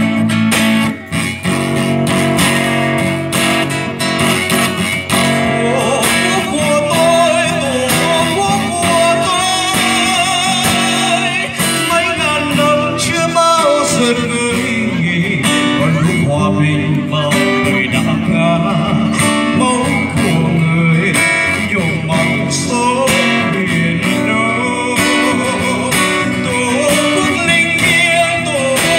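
A man singing into a microphone while strumming chords on a steel-string acoustic guitar, his voice joining the guitar after a few seconds.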